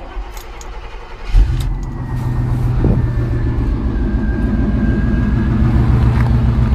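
Cold start of a Chevy pickup's 305 small-block V8: the starter cranks for about a second and a half, then the engine catches with a sudden jump in level. It settles into a steady idle through a quiet Thrush muffler, with a faint high whine over it.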